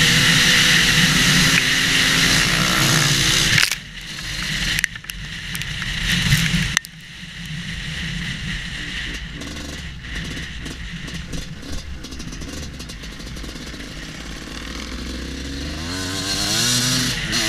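Husqvarna WR250 two-stroke enduro motorcycle being ridden hard off-road: the engine runs loud at high revs for the first few seconds, then the throttle is cut and it drops to quieter running with a brief surge, and it revs up again near the end.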